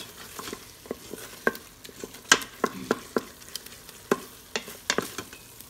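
Wooden spoon stirring chopped onion, celery, bell pepper and garlic in a roux in a stainless steel Instant Pot inner pot. Irregular sharp scrapes and knocks of the spoon against the pot sound over a faint sizzle from the sauté setting.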